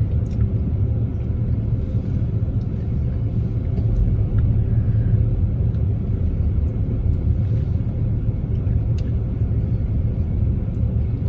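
Steady low rumble of an idling car engine heard inside the parked car's cabin, with a few faint clicks.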